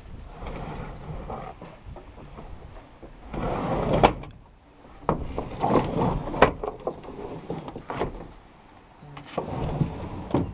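Short Douglas fir logs scraping and knocking as they are loaded by hand into a truck bed, with several sharp thumps of wood striking the bed.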